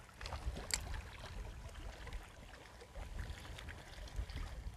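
Wind buffeting the microphone and seawater lapping against seawall rocks, with a few faint clicks and one sharper click under a second in.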